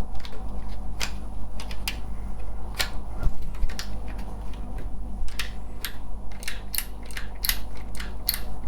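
Irregular sharp clicks and taps of small plastic and metal parts from a car power door lock mechanism being handled and worked apart. The clicks come more often in the second half.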